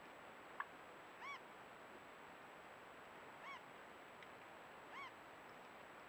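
A bird calling three short notes, each rising then falling in pitch, about two seconds and then a second and a half apart, over a faint steady hiss.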